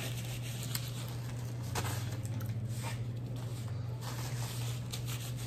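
A steady low hum, with a few faint clicks and a paper napkin rustling as chopsticks are handled and wiped.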